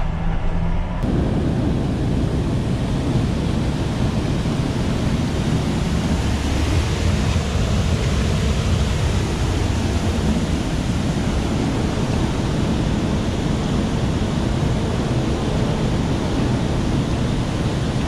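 Soybeans pouring from a gravity wagon's chute onto a grain pit grate: a steady rushing hiss with a low machine rumble underneath. Before it, about a second of a tractor's engine heard from the cab.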